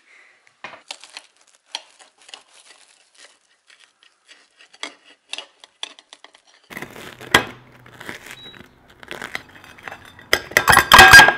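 A table knife cutting through a crisp toasted sandwich on a ceramic plate: scattered crackles and small scrapes, then denser crunching with one sharp knock. Near the end comes the loudest part, a quick run of clinks and scrapes of the knife against the plate.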